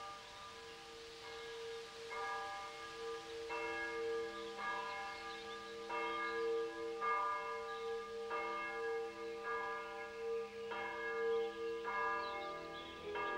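Church bells ringing, with a new strike about once a second, each ring carrying on under the next so the tones overlap into a continuous hum. The ringing starts suddenly.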